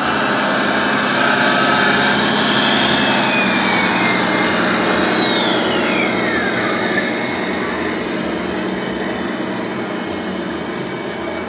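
Radio-controlled model truck running with a steady engine-like drone and a high whine; the whine glides down in pitch about six seconds in.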